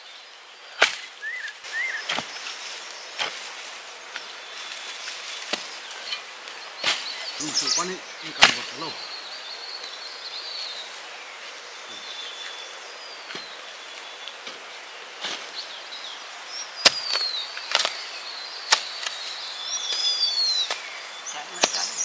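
Chopping: a blade striking a surface in irregular blows, roughly one to two seconds apart, with faint high chirps in between.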